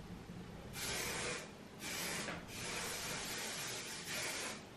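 Aerosol hairspray being sprayed in about four short hissing bursts, the third one longer than the rest.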